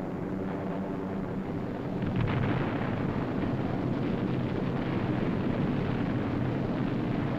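Aircraft engines droning on a 1940s film soundtrack. About two seconds in, a louder, continuous low rumble of explosions sets in and runs on under the drone.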